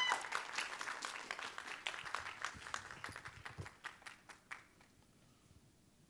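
Audience applause, a crowd clapping that thins out and dies away over about four to five seconds.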